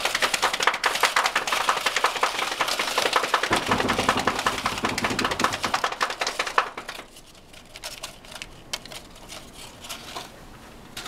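An improvised drum roll of rapid, even taps for about seven seconds. It then gives way to sparse crinkles and clicks of a folded paper slip being drawn from a cup and unfolded.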